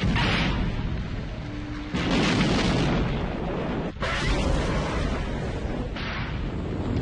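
Film sound of tanker trucks exploding: four big blasts about two seconds apart, each dying away into a rumble before the next.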